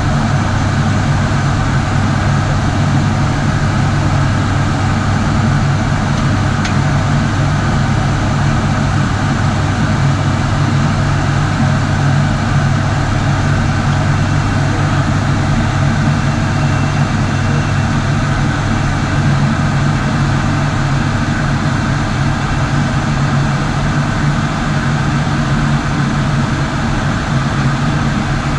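Steady cockpit drone of the ATR 72-600's twin turboprops: a constant low propeller hum under an even hiss of airflow.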